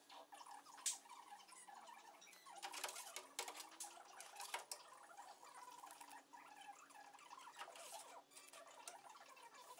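Faint crackling and ticking from oxy-acetylene gas welding of a sheet-steel repair panel, with a sharper click about a second in and a flurry of clicks around the middle.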